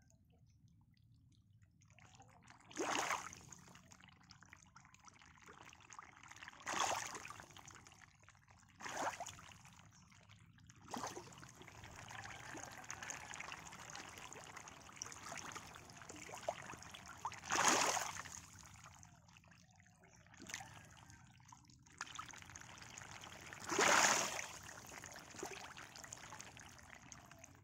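Water splashing and trickling in a pond: about six separate splashes a few seconds apart, the loudest two near the middle and near the end, over a faint trickle.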